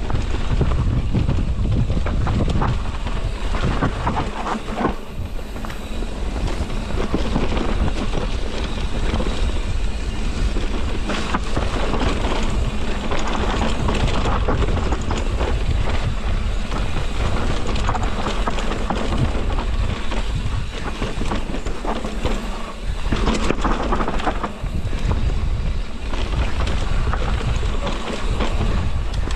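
Mountain bike descending rough dirt singletrack: wind buffets the camera microphone over a steady low rumble, with near-constant clatter and knocks from the bike and its tyres on the bumpy dirt.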